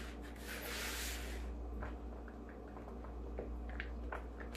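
Cookie dough being stirred in a mixing bowl: a scraping, rubbing sound for about the first second and a half, then light scattered clicks and ticks.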